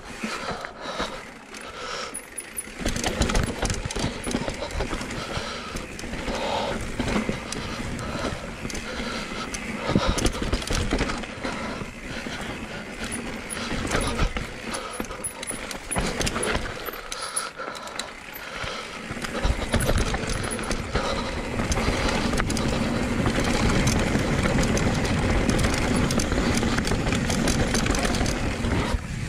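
Cube Stereo 170 Race full-suspension mountain bike descending a dirt trail: tyres scrubbing and crunching over dirt and roots, with constant clatter and knocks from the chain and frame over bumps. The noise eases off briefly near the start and again about two-thirds through, then runs steadier and louder.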